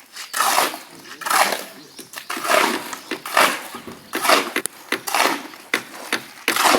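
Concrete being mixed by hand: a shovel scraping through stiff, fairly dry concrete mix in repeated strokes, about one a second, seven strokes in all.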